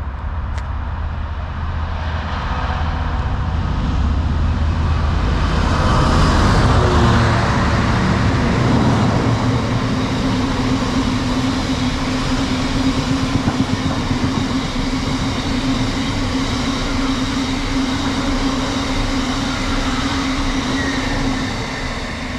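Class 66 diesel-electric freight locomotive passing through the station with its train. Its engine, a two-stroke V12, grows louder to a peak about six or seven seconds in, then the train keeps rolling past with a steady low drone that fades slightly near the end.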